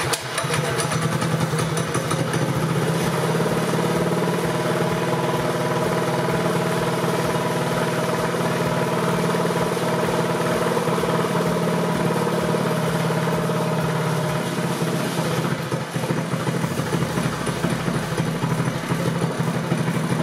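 Predator 212cc single-cylinder four-stroke engine with a Stage 1 kit (performance air filter and open header pipe) catching at once and running at high, steady revs: with the freer airflow the idle set for stock is too high and the engine is running away. About three-quarters of the way through the revs drop and the running becomes less even.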